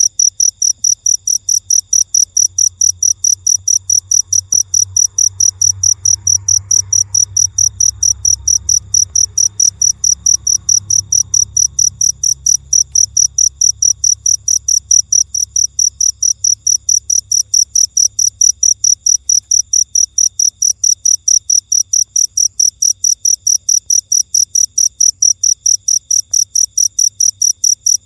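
Cricket chirping in a steady, even, rapid rhythm of high-pitched chirps.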